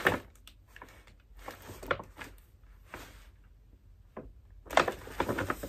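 Brown paper shopping bag rustling and crinkling in the hands as it is held up and shifted, in short bursts with a busier stretch near the end.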